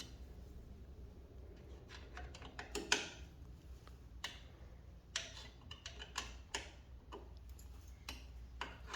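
Faint, irregular clicks and taps of hand tools on metal as the bolts of a motorcycle steering stabilizer are undone, with a small cluster about three seconds in and a quicker run of clicks a little past the middle.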